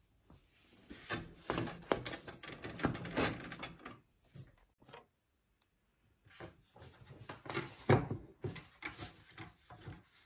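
Canon G5000-series inkjet printer running a print job, a dense rattle of clicks from its paper feed. After a short pause, card is handled on a paper guillotine, with scattered clicks and a sharp knock about eight seconds in.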